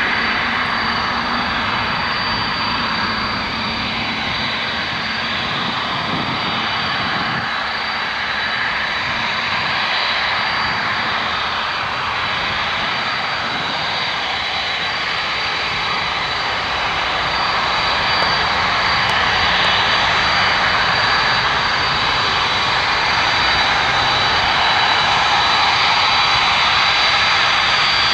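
Boeing 747's four jet engines running at taxi power: a steady roar with a thin high whine over it, getting a little louder in the second half as the aircraft comes closer.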